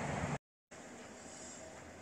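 Steady rushing background noise that cuts off suddenly less than half a second in. After a brief moment of silence, a quieter steady background noise follows.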